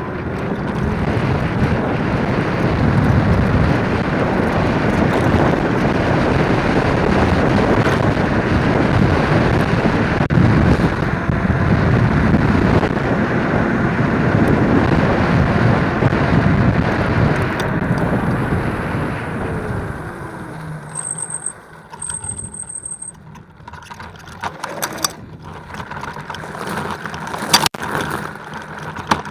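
MotoTec Thor dual-motor electric scooter at speed, with wind buffeting the camera's microphone over the tyre rumble. After about twenty seconds it slows, and the noise drops to scattered clicks and rattles, with two short high beeps and a sharp knock near the end.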